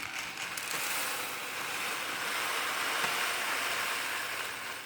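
Dry uncooked rice being poured out in a steady stream, a continuous rustling hiss that stops near the end.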